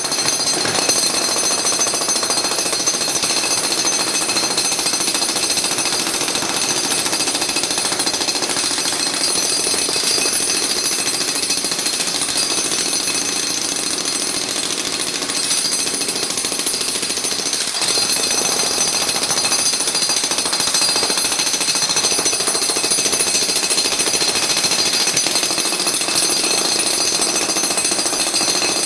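Steady, rapid mechanical hammering that runs without a break, with a high ringing whine over it.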